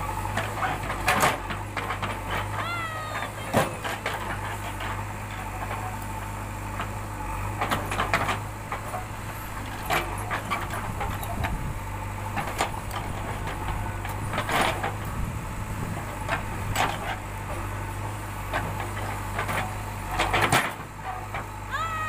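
JCB 3DX backhoe loader's diesel engine running steadily while the backhoe arm digs, with irregular clanks and knocks from the bucket and arm every couple of seconds.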